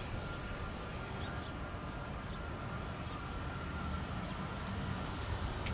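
Airbus A320neo's Pratt & Whitney PW1100G geared turbofans at low taxi thrust as the airliner turns onto the runway: a steady rumble with a faint steady whine. A few short bird chirps sound over it.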